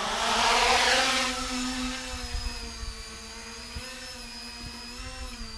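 A 3D-printed mini tricopter's brushless motors and propellers buzzing steadily in a hover, the pitch wavering slightly. A louder rush of air in the first second or so fades into the steady buzz.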